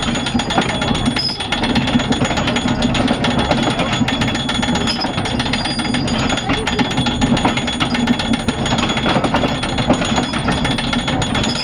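Hand-worked anchor windlass hauling up the anchor, its ratchet pawl clattering in a rapid, unbroken run of clicks.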